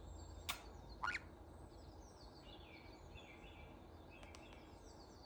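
Pet birds calling: two short sharp calls about half a second apart near the start, then faint soft chirping.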